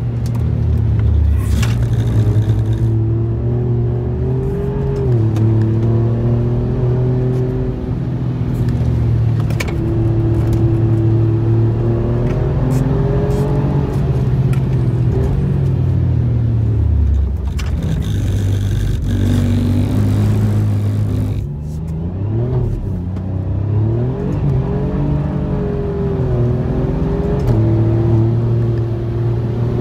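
Alfa Romeo Giulia Quadrifoglio's twin-turbo 2.9-litre V6, heard from inside the cabin while driven hard on track. The engine note rises and falls with throttle and gear changes, dropping sharply about sixteen seconds in and swinging quickly up and down a few seconds later.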